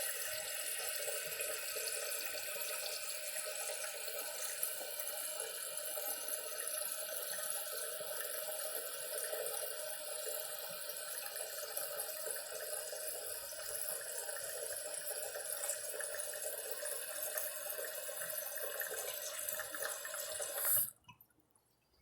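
Toilet refilling: water running steadily through the fill valve, stopping abruptly near the end.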